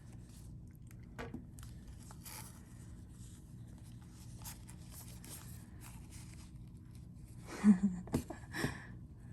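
Handling noises as a fashion doll is dressed: faint rustling and light clicks of small plastic clothing and accessory pieces, with a louder burst of clicks and rustling near the end.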